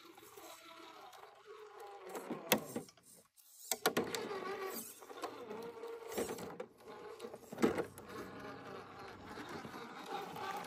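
Small electric motor and gearbox of an RC rock crawler whining steadily as it crawls over granite, with the tyres and chassis scraping and knocking on the rock now and then. The whine cuts out briefly about three seconds in, then picks up again.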